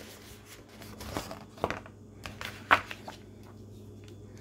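Paper cards and a shrink-wrapped booklet being handled on a countertop: a few short rustles and taps, the sharpest near the middle, over a faint steady hum.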